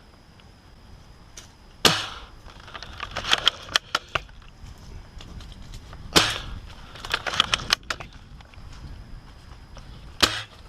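Well L96 airsoft spring sniper rifle firing twice, about four seconds apart, each sharp shot followed by a quick run of clicks as the bolt is worked.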